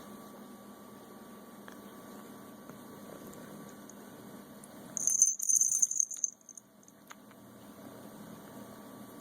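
A kitten's harsh, rattling cough: one jagged, hissy burst of about a second, roughly five seconds in, over a faint steady hum.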